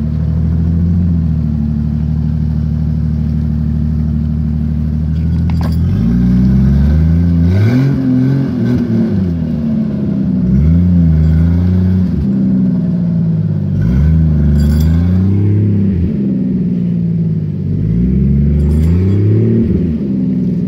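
Off-road SUV engine running steadily at first, then revved hard about five times, each rev rising and falling in pitch, as the vehicle drives through mud on big mud tires. A few short clanks are heard along the way.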